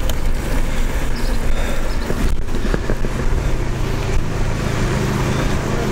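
Wind buffeting the microphone over the rumble of a Kulana tandem bicycle's tyres rolling on asphalt, with a couple of short knocks from bumps in the road.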